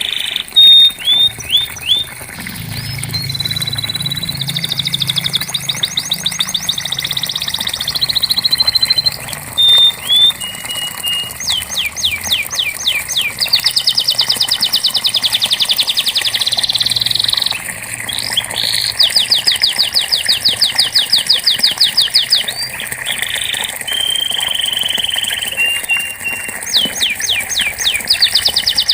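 Domestic canary singing a long continuous song: fast rolling trills lasting a few seconds each, linked by short whistled notes, one phrase straight after another.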